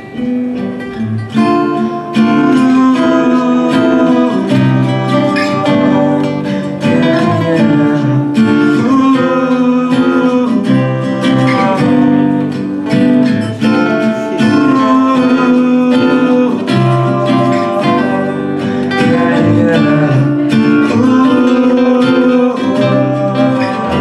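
Two acoustic guitars playing together, an instrumental break between sung lines of a song, getting louder about two seconds in.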